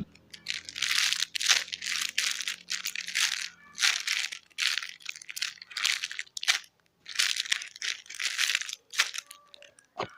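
A squishy toy being handled and squeezed, making a rustling sound in about ten short bursts with brief pauses between them.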